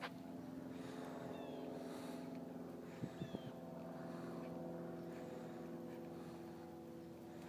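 A motor running at a steady, even speed, giving a constant hum. Three sharp knocks in quick succession come about three seconds in.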